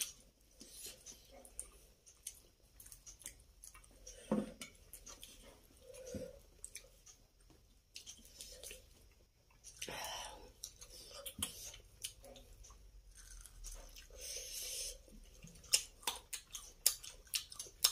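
Close-up eating sounds: wet chewing with small irregular clicks and smacks, and fingers mixing rice on a steel plate.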